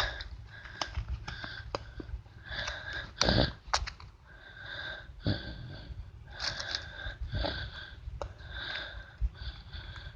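Heavy, rhythmic breathing close to the microphone, like someone straining to press down a trap's springs. It is broken by a few sharp clicks and a louder knock about three seconds in.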